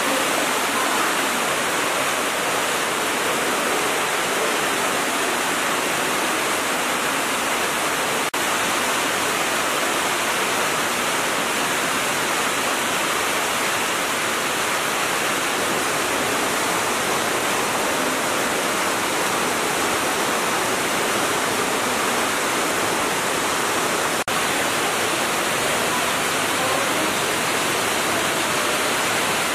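Steady rushing of water running over travertine terraces, dropping out for an instant twice.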